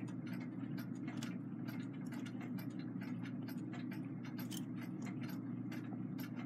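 Faint, light metallic clicks of brass clock-movement gears being handled and slipped back into mesh between the spread plates, over a steady low hum.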